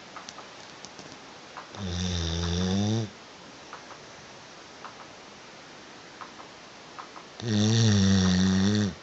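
A sleeping dog snoring: two long snores about five seconds apart, each low in pitch, dipping and then rising again towards its end.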